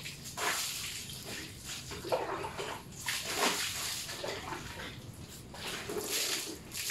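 Water splashing over a motor scooter as it is washed, in several gushes a second or so apart that spatter onto the bodywork and the wet tiled floor.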